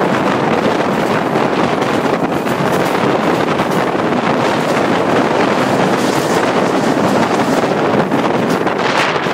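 Steady wind rushing over a microphone held out of a moving train's window, mixed with the train's running noise on the track.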